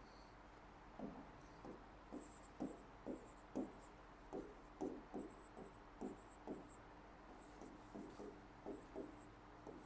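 Handwriting on a board: a run of irregular short scratching pen strokes, about two a second, faint over a low steady hum.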